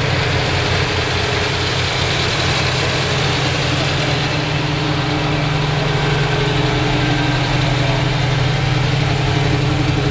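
1967 Chevrolet Nova SS's 327 cubic-inch four-barrel V8 idling steadily through its dual exhaust.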